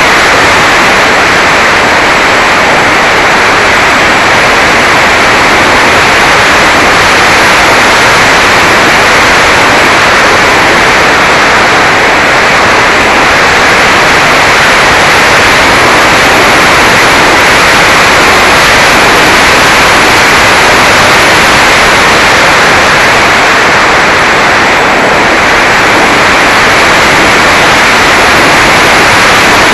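Loud, steady rushing noise with no clear tone: wind and airframe noise picked up by a Mobius Mini camera riding on a Mini Talon RC plane in flight.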